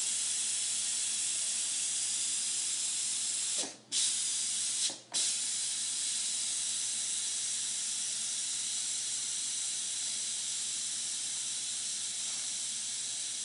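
Steam hissing steadily out of a Breville electric pressure cooker's open pressure-release valve: a quick release of the pressure after cooking, before the lid can be opened. The hiss briefly cuts out twice, about four and five seconds in.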